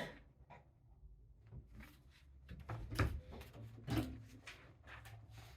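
Objects handled on a worktable: a few light knocks and bits of clatter, the loudest about three and four seconds in, over a low steady hum.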